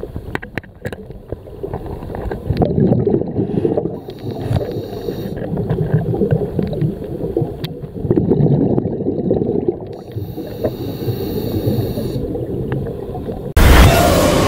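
Underwater camera audio of a dive: muffled rumbling and gurgling water with scattered clicks, and two stretches of higher hiss. Near the end a sudden loud rush of sound cuts in.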